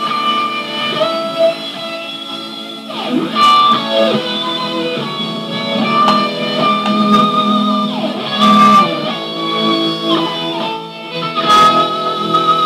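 Electric guitar music: a lead line of long held notes, sliding between pitches a few times, over a steady backing.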